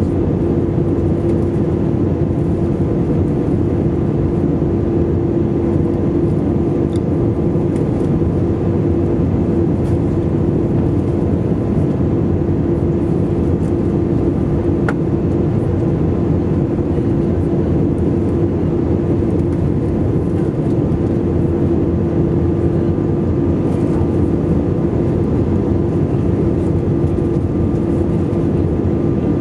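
Steady cabin noise of an Airbus A320 in cruise-like flight, heard from a window seat over the wing: the drone of the jet engines and rushing airflow, with a constant low hum running through it.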